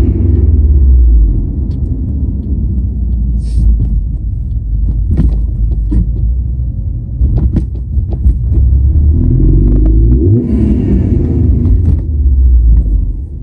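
2016 Subaru WRX STI driving under heavy low rumble, the engine pulling up in pitch near the start and again about ten seconds in, with scattered sharp ticks and knocks in between. This is the car that makes a strange metallic whirring under acceleration, more prominent when the gas is released; the cause is unknown.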